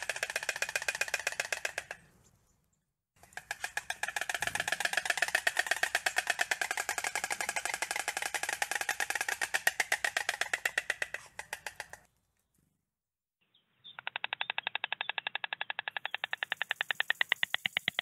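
White storks clattering their bills: rapid wooden rattles made by snapping the beak open and shut. There are three bouts, the first dying away about two seconds in, a long one from about three to twelve seconds, and another starting near fourteen seconds.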